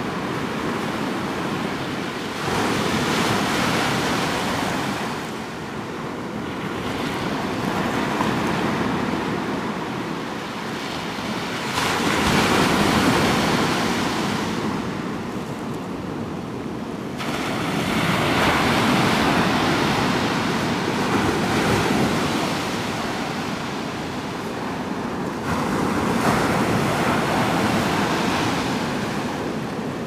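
Ocean surf breaking on the beach, a steady wash of noise that swells and fades about every five or six seconds.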